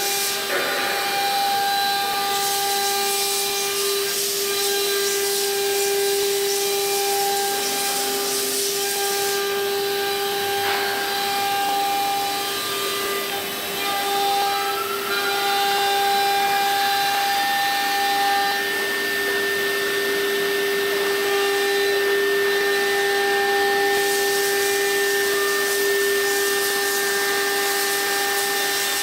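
Two-head foam mould CNC router running, its spindles giving a steady whine of several tones over a hiss. About halfway through one tone glides up in pitch and then holds.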